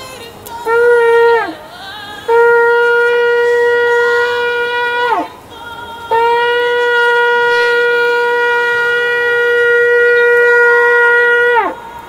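Shofar blown in three blasts: a short one, then two long steady notes of several seconds each, every blast ending with a quick drop in pitch.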